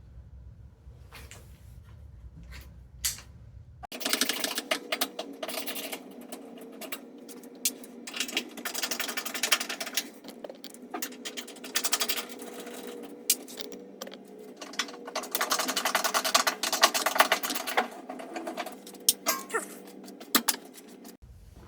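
A small electric motor running in several bursts with a steady hum and rapid clicking, starting about four seconds in and stopping just before the end.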